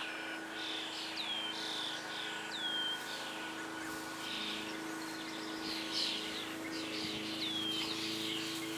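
Songbirds chirping, with a few short calls that sweep down in pitch, over a steady low hum.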